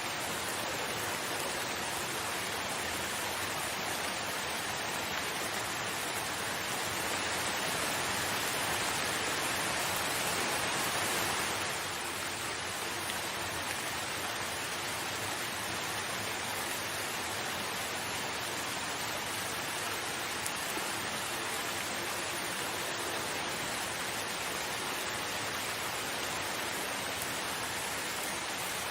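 Steady heavy rain, a dense even hiss, swelling a little louder for a few seconds and easing back about twelve seconds in.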